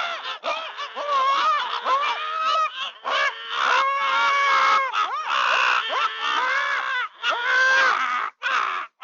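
A rapid, unbroken string of honking, squawking calls whose pitch slides up and down, stopping abruptly at the end.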